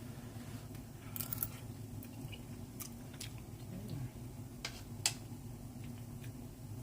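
A person eating a mouthful of home-cooked food to taste it: quiet chewing with a few short sharp clicks, over a steady low hum.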